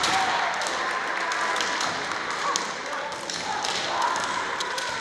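Kendo hall din: scattered sharp clacks of bamboo shinai and thuds of feet stamping on the wooden floor, mixed with short shouts from the fencers.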